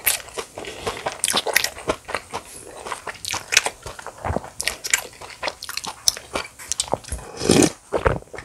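Close-miked chewing of spicy bibimbap: crunchy mouth sounds made of many short, sharp clicks, with a louder, fuller sound about seven and a half seconds in.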